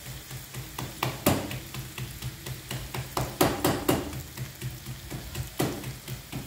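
Hands patting and slapping a ball of corn masa flat on a plastic sheet to shape a tortilla: a series of sharp pats, irregularly spaced, with a quick cluster a little past the middle.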